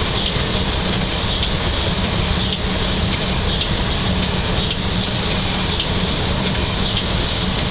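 Steady running noise of a train heard from inside the driver's cab: a low rumble with a hiss that brightens in a regular beat about once a second.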